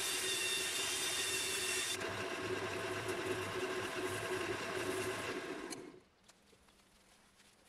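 Wood lathe running with a steady hum while the spinning pine-and-epoxy bowl is power-sanded with a sanding disc in a cordless drill, whose whine stops about two seconds in. Hand sanding with an abrasive pad against the spinning bowl follows, and near the end the sound drops away to faint.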